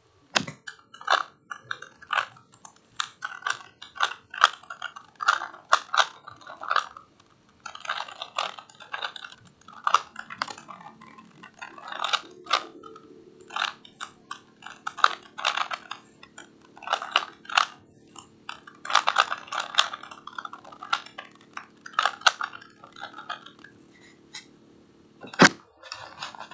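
3x3 Rubik's cube being turned rapidly by hand: irregular, fast plastic clicking and clattering as the layers twist while one face is solved. A sharper single click comes about a second before the end.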